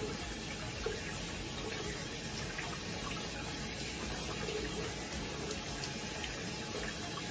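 Bathroom sink tap running steadily while the face is rinsed under it with splashing water.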